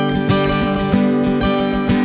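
Instrumental music: an acoustic guitar strumming chords in a steady rhythm, with no singing yet.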